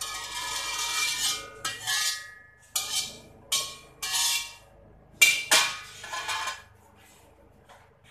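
Metal slotted spatula scraping around the inside of an empty aluminium wok in a series of strokes, the thin wok ringing with each stroke. The scraping stops a little before the end.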